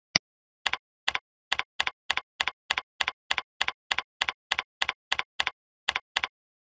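A single sharp mouse click, then a computer keyboard typed at an even pace of about three keystrokes a second, eighteen keystrokes in all, each a quick press-and-release double click.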